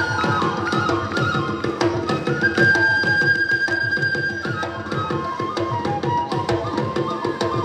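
Hajong folk music: a flute playing a stepping melody, with one long held note about three seconds in, over quick, steady drum beats.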